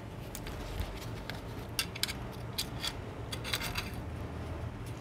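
Scattered light clicks and soft taps from a smartphone replacement screen and its metal display frame being handled in gloved hands, over a faint steady low hum.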